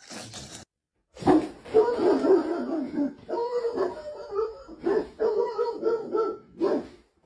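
A dog vocalizing in drawn-out, wavering, pitched sounds with only brief pauses, after a short silent break about a second in.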